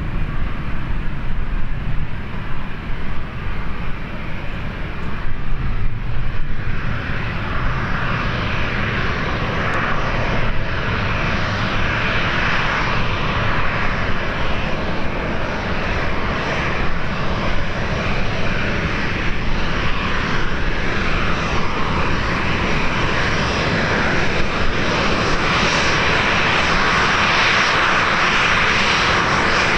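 Jet airliner engines, their roar swelling from about seven seconds in and still growing louder at the end, over a gusting rumble of wind on the microphone.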